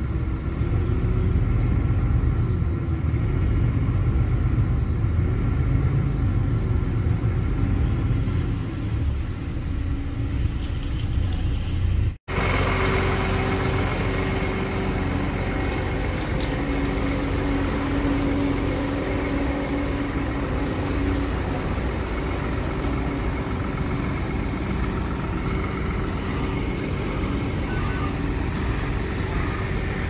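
Low, steady rumble of a car driving, heard from inside the cabin. About twelve seconds in it cuts off suddenly to the steady drone of idling diesel truck engines from a concrete boom pump and mixer truck.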